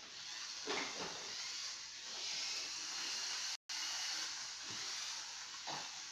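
Small electric toy train running around its track: a steady hissing whir of the motor and wheels. The sound cuts out for an instant a little past halfway.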